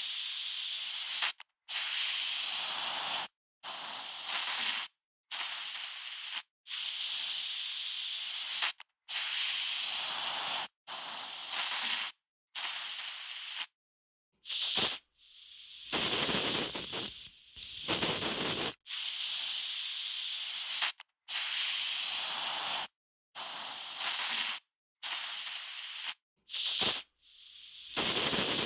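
Aerosol spray can hissing in short sprays one after another, each a second or two long, separated by brief pauses, with one longer spray in the middle.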